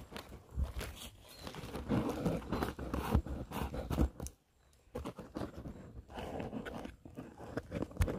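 Irregular rustling, crunching and knocking close to the microphone as the phone is handled and wedged into a split wooden stick used as a makeshift stand. The sound drops out for under a second about four seconds in.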